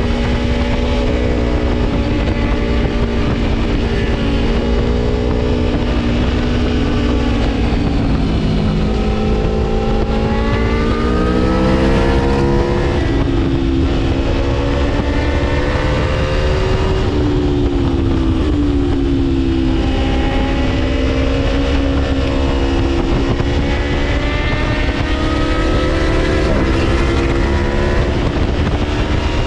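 Gabro Stage 3-tuned Aprilia Tuono V4 motorcycle engine under way. Its revs climb steadily and drop back sharply at the shifts, several times over.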